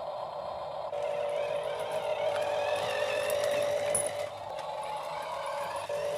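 Small electric gear motor of a radio-controlled toy tractor running steadily with a high whine, louder from about a second in.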